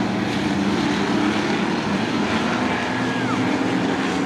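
Engines of several race trucks running together around a short oval track, a steady drone. About three seconds in, a brief high tone slides down and fades.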